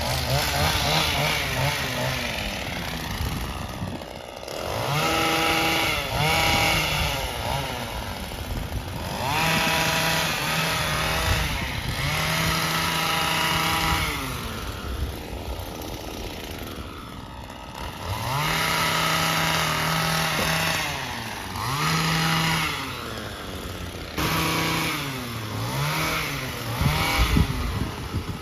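Small two-stroke engine of a handheld power tool, revved to full throttle in repeated bursts of one to three seconds and dropping back to idle between them, about seven times.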